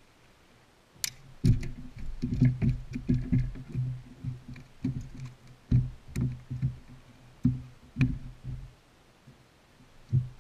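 Irregular thumps and knocks on a Skeeter bass boat's deck while a hooked bass is lifted aboard by hand, with a few sharp clicks, the loudest about a second in and near eight seconds.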